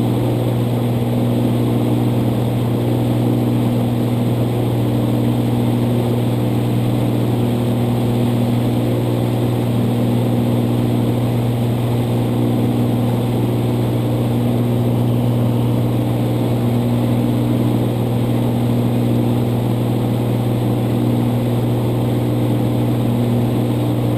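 Cirrus SR22's six-cylinder piston engine and propeller at cruise power of about 2,400 rpm, heard inside the cabin as a loud, unbroken low drone. Higher tones above it fade in and out every few seconds.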